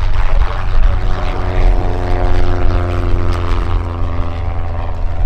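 Reims Cessna F150K's four-cylinder Continental O-200 engine and propeller at takeoff power as the plane lifts off and climbs away, the engine note sinking slightly in pitch as it passes.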